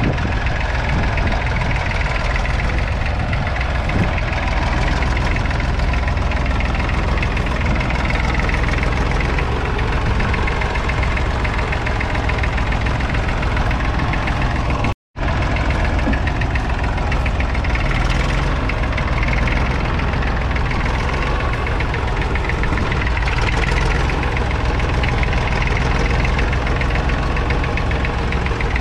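1963 Fordson Dexta's 2.4-litre three-cylinder diesel engine running steadily with a diesel knock while the tractor pulls a two-furrow mounted plough through the field. The sound cuts out for a moment about halfway through.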